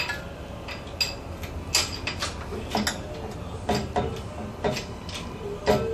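Sharp metallic clicks and clinks at uneven intervals, about ten of them, from the lifting gear and the hanging Toyota 3.0 engine as it is lowered.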